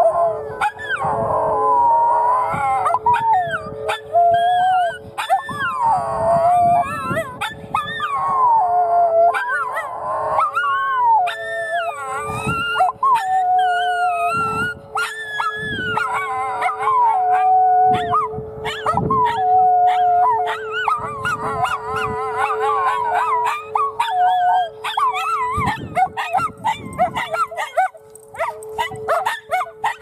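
Two miniature schnauzers howling in long, wavering calls, set off by a tornado warning siren that holds one steady tone underneath. Near the end the howls break up into shorter, choppier calls.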